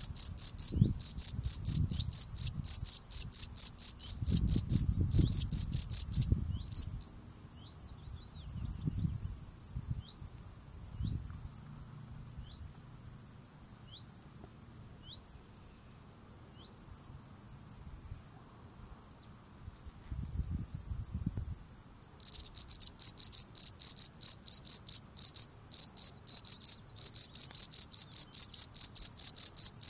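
European field cricket (Gryllus campestris) male singing its calling song: loud, evenly repeated high chirps, about three or four a second. About six seconds in the loud chirping stops and only a faint chirping goes on; the loud song starts again about two-thirds of the way through.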